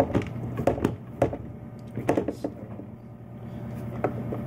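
Fingers pressing soft cookie dough flat on a metal baking pan, giving a series of short knocks and taps against the pan, most of them in the first second and a half, over a steady low hum.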